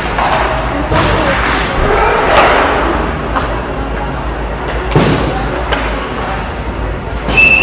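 Inline hockey play: sharp knocks of sticks and puck, several times, over voices and crowd noise. A short, high whistle blast comes near the end.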